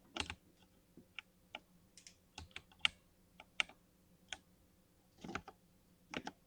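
Irregular sharp, small plastic clicks from Cherry MX Silver keyboard switches being handled during lubing, some coming in quick pairs or short clusters.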